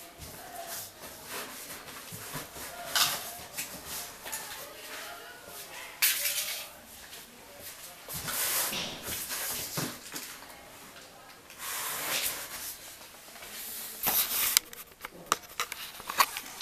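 Large cardboard TV carton being opened by hand: bursts of cardboard scraping and tearing, coming and going every second or two, with a few sharp clicks and knocks near the end.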